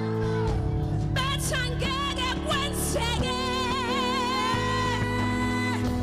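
Live amplified singing: a voice with wide vibrato over sustained accompaniment chords, ending in a long held note near the end.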